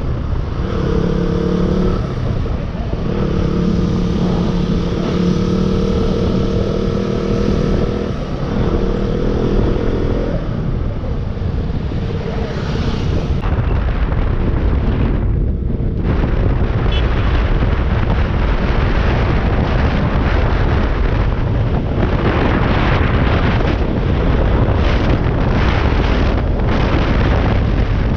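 Motorcycle engine running at a steady pitch during a ride, with a slight dip and change about two and eight seconds in. From about ten seconds in the engine note fades into heavy wind and road noise buffeting the microphone.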